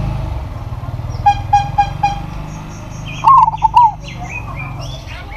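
Zebra dove cooing: a loud short phrase of bubbling notes about three seconds in, after a run of four short even notes about a second in. Small birds chirp and a steady low rumble runs underneath.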